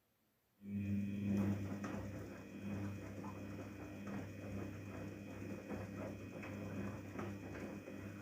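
Daewoo DWD-FT1013 washing machine's motor starting about half a second in and turning the drum steadily during a cotton 40°C wash cycle: a steady low hum with irregular light ticks and patter from the tumbling load.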